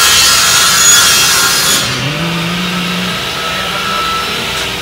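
A loud, harsh scraping noise of the sawing kind. Its high hiss drops away about two seconds in, leaving a low hum.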